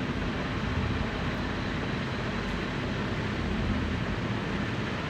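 Mustard seeds heating in hot oil in a pan on the stove: a steady sizzle.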